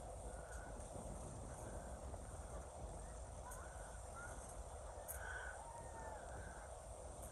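Quiet outdoor ambience: a steady low rumble of wind on the microphone, with a few faint, short bird calls scattered through it, the clearest about five seconds in.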